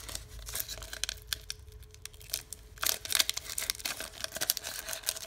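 Foil wrapper of a Pokémon booster pack crinkling and crackling in the hands as the pack is opened, in irregular bursts that are loudest about three seconds in.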